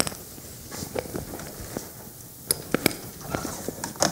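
Laptop keys being tapped: a handful of short, irregular clicks, a few close together past the middle.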